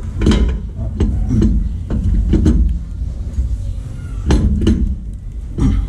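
Sharp metallic knocks and clinks, about eight irregular strikes with a pause midway, as the differential carrier with its new bearings is knocked into place in the axle housing.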